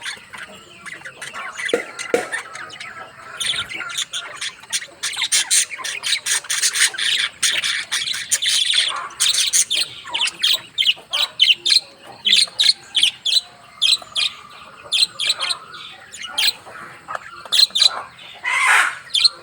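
Small pet parrots chirping and chattering together in a fast, continuous string of short, sharp, high calls.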